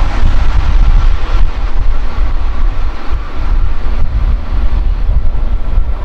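Keihan 8000-series electric train running past close by on curved track and drawing away: a loud, steady low rumble of wheels on rail.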